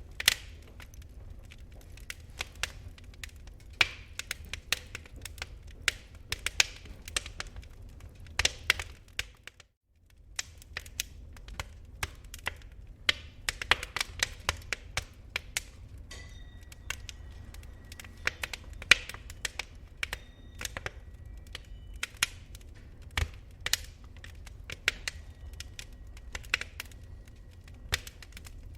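Wood fire in a fireplace crackling, with irregular sharp pops and snaps over a low steady rumble of slow-burning embers. The sound fades out briefly about ten seconds in and comes back, and a faint steady high tone sounds through the later part.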